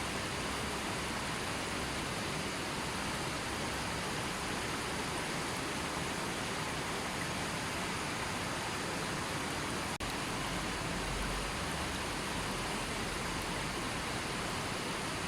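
Steady rush of a gently flowing river, with a brief dip in level about ten seconds in.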